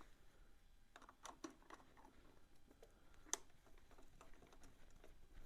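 Near silence with faint, scattered clicks and light taps of hand tools on engine cover bolts: a few in the first two seconds and a sharper click about three seconds in.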